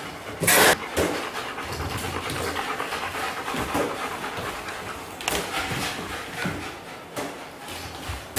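A toy poodle panting while it plays with a balloon, with a few sharp taps and knocks as the balloon bounces, the loudest about half a second in.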